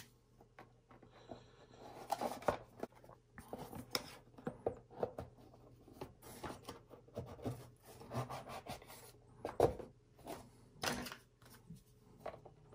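Clear plastic dividers sliding into the slots of a Lure Lock deep tackle box: plastic scraping on plastic, with short clicks and taps as each divider is pushed into place.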